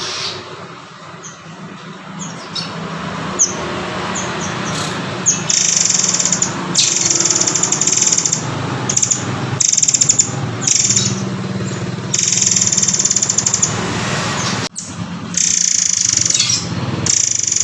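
Recorded song of a murai air, the bird also called murai kopi: short high chirps at first, then long, high rattling trills of a second or two each, repeated over a steady background hiss. It is played as tutor song for a captive white-rumped shama.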